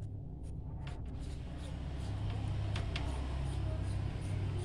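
A few small clicks as a compact fluorescent spiral bulb's base is handled and screwed into a socket to test it. Under them runs a steady low rumble that grows slightly louder.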